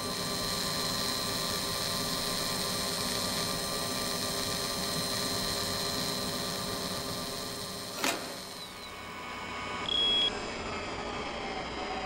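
Synthesized mechanical sound effects for an animated robotic fly drone: a steady electronic hum with a high, held whine, broken about two-thirds through by a sharp click, then a short, loud, high beep, after which a quieter hum carries on with a slowly sliding tone.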